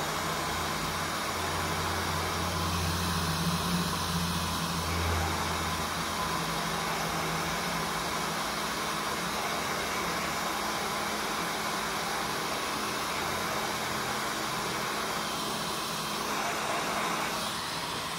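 Hot air rework station blowing steadily over a laptop motherboard to melt the solder on a RAM power supply chip. It is a constant rush of air with a low hum.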